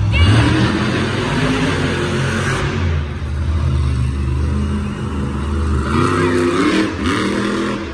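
Monster truck engine running loudly: a steady low engine note, then several quick rising revs near the end.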